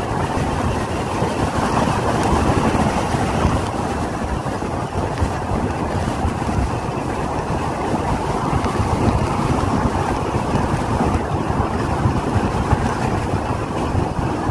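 Strong sea wind buffeting the microphone over rough surf breaking on the beach, a steady rush of noise with no distinct single crashes.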